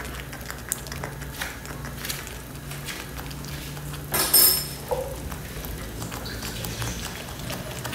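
Kitchen handling sounds as tomato paste goes into a frying pan of meatball sauce: scattered light clicks and knocks of a spoon against the pan and the paste container, with one louder, brief scraping clatter about four seconds in, over a low steady hum.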